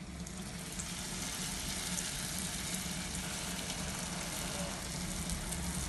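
Sfenj dough ring frying in a pot of deep hot oil: a steady sizzle with fine crackling.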